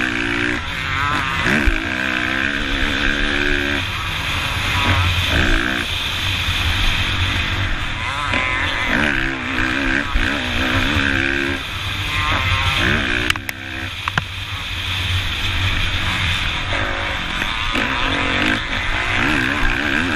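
Kawasaki KX450F's single-cylinder four-stroke engine revving up and down over and over as the dirt bike is ridden hard around a motocross track, with wind noise on the microphone. A sharp knock comes about 13 seconds in.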